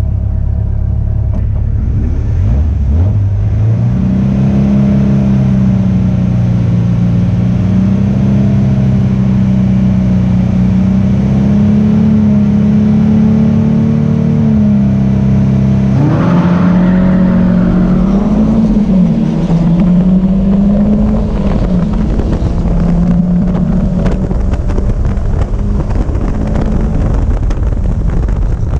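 Caterham Seven race car's engine heard from the open cockpit: revs rise and are held steady on the grid, then the car launches off the line for the race start and accelerates hard, with the pitch rising and dropping through several upshifts.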